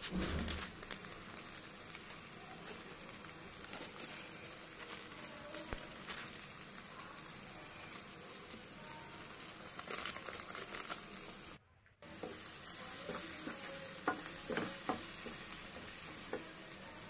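Chopped onions, tomatoes and green chilies sizzling steadily in hot oil in a non-stick kadai, with a wooden spatula scraping and stirring through them. The sound cuts out for a moment about two-thirds of the way through.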